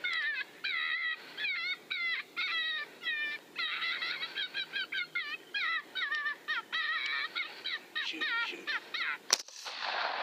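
Rapid, repeated high-pitched squealing calls, each note bending downward, in quick clusters. About nine seconds in comes one sharp, loud report from a rifle, followed by a burst of rustling noise.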